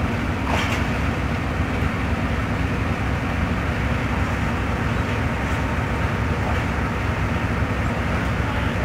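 Steady low rumble of a departing passenger train pulling away down the line.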